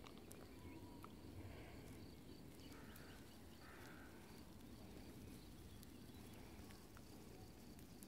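Near silence: faint outdoor ambience with a low rumble and a few soft ticks.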